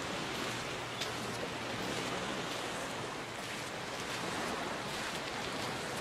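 Gulf of Mexico surf washing onto a sandy beach in a steady rush, with a few faint ticks.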